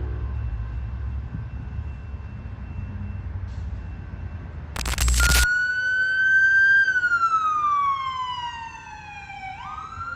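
Low rumble, then after a brief noisy burst about five seconds in, an emergency vehicle's siren wailing: one tone that holds, falls slowly, and sweeps quickly back up near the end.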